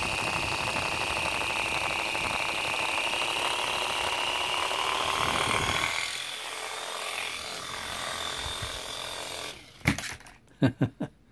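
Small electric motors and twin rotors of an Air Hogs Twin Thunder toy RC tandem-rotor helicopter running with a high whine that slowly rises in pitch. It gets quieter about six seconds in and cuts off near the end, followed by a few sharp knocks.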